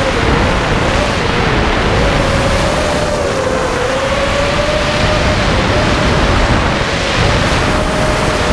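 ZMR-frame FPV racing quadcopter's motors and propellers whining, the pitch wavering up and down with the throttle, with wind buffeting the onboard camera's microphone.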